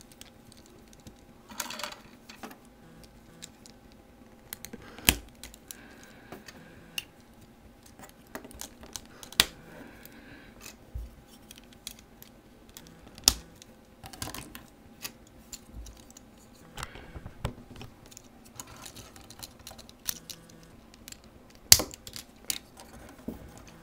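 Plastic Bionicle parts clicking and snapping together as they are handled and joined, in scattered irregular clicks with a few sharper snaps, the sharpest near the end.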